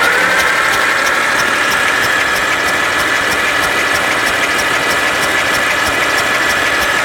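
Allis-Chalmers Model B tractor engine being cranked over on its electric starter without firing, a steady starter whine with an even beat of pulses. It is being turned over to bring up the oil pressure before the engine is run.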